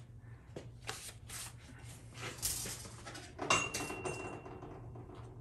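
Light clicks and clinks of small metal parts and tools being handled, with one sharper metal clink about three and a half seconds in that rings briefly, over a steady low hum.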